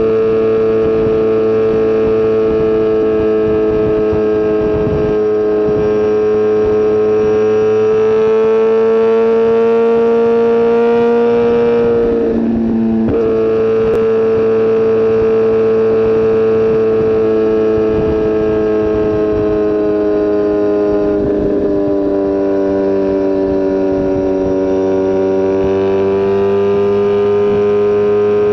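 Sportbike's inline-four engine heard from the rider's seat, running steadily at cruising revs on a motorway. The engine note rises and falls slowly with the throttle and drops briefly about twelve seconds in before picking up again.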